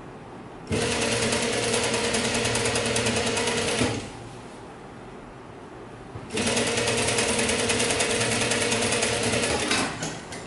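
Juki industrial sewing machine stitching a seam in two runs of about three seconds each, separated by a short pause; each run is a steady, rapid stitching rattle. A few light clicks follow near the end.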